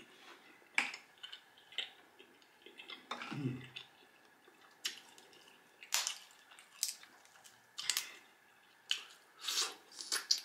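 Close-up eating sounds: snow crab leg shells snapping and cracking apart in the hands, several separate sharp snaps about a second apart, with wet squishing and mouth sounds as the crab meat is pulled out and eaten.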